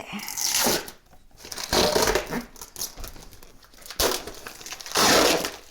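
Plastic wrapping crinkling and rustling in several loud bursts as it is pulled off a new refrigerator.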